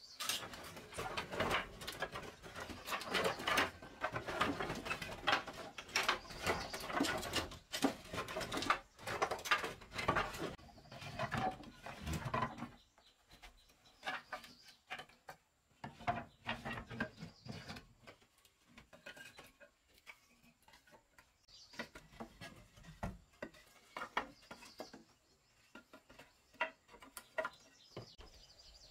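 Wooden board offcuts clattering and knocking together as an armload is set down on a plank floor, dense for the first dozen seconds, then separate wooden knocks as sticks are pushed into a brick stove's firebox.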